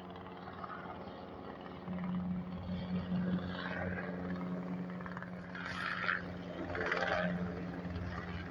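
Sea King helicopter circling overhead: a steady, droning engine and rotor hum, with a couple of brief swells near the end.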